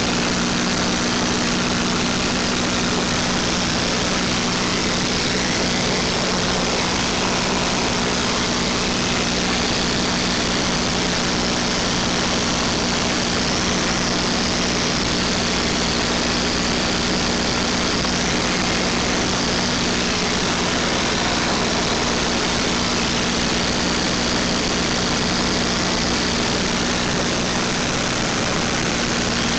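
Steady drone of a vintage warplane's piston engine heard from inside the cockpit in flight, an even hum mixed with rushing air and no change in pitch or loudness.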